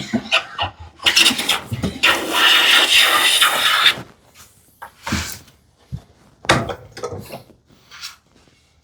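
Hand plane working the edge of a cherry strip to bring it to width. A few short strokes come first, then one long stroke of about three seconds, then scattered knocks and short scrapes.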